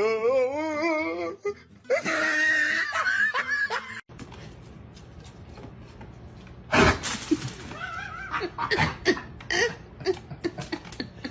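People laughing in short bursts. The sound cuts off abruptly about four seconds in, and the laughter picks up again in another run of bursts later on.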